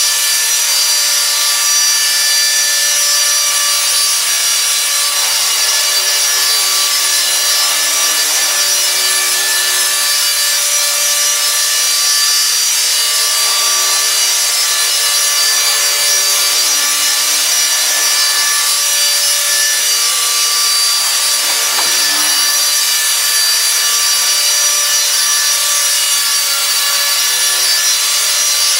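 E-flite Blade SR electric RC helicopter hovering: a steady, high-pitched whine from its motors and gears over the whir of the spinning rotor blades.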